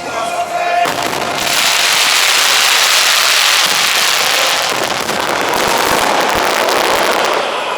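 A firework burning for about six seconds with a loud, steady hiss. Scattered crackles come in its second half, and it dies down near the end.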